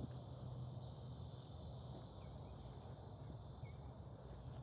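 Outdoor summer ambience: a steady, high insect drone over a low rumble, with a couple of faint short chirps.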